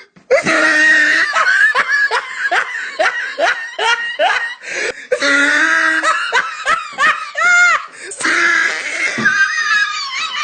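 A person laughing hard, in quick runs of short ha-sounds with catches of breath in between, rising into a few squealing peaks near the eight-second mark.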